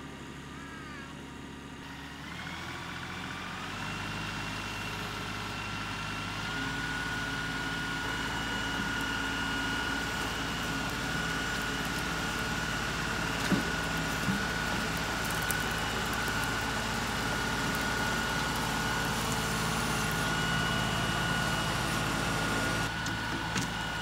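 LS XR3135 compact tractor's diesel engine running, coming up in speed about two seconds in and then holding steady with a high whine over it. The sound changes near the end as the tractor moves off.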